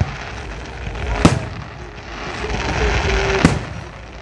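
Aerial firework shells bursting: three sharp booms, one right at the start, one just over a second in and one about three and a half seconds in, with a low rumbling echo between them, picked up by a phone's microphone.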